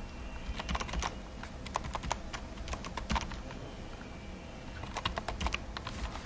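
A run of light, irregular clicks and taps, several a second in short flurries.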